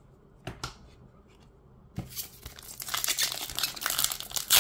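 A couple of soft taps as cards are set down, then from about halfway in a foil Pokémon booster pack wrapper crinkling and tearing as it is pulled open by hand, getting louder toward the end.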